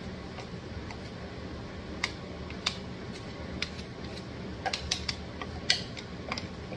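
Scattered light clicks and taps of a utensil scraping thick, freshly blended sunflower seed butter out of a blender container into a plastic funnel on a glass jar. The clicks come more often in the second half, over a faint steady hum.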